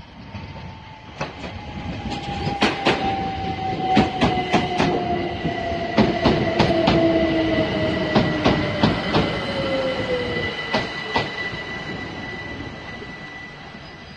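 Passenger train passing through at speed: wheels clacking sharply over rail joints in quick groups over a rumble that builds, peaks mid-way and fades near the end. A whine slowly falls in pitch, and a steady high tone sounds with it.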